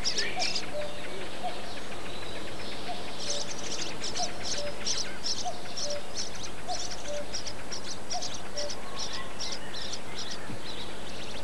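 Reed warbler singing in a reed bed: a long, chattering run of short, harsh repeated notes that starts about three seconds in. A soft, lower short note repeats steadily underneath.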